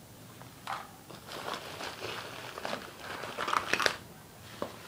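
Crinkling and rustling of packaging as makeup items are handled and dug out of a box, with a cluster of sharp clicks and knocks about three and a half seconds in.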